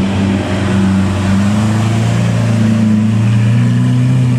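Supercar engine running steadily at low revs, its pitch creeping slowly upward through the second half.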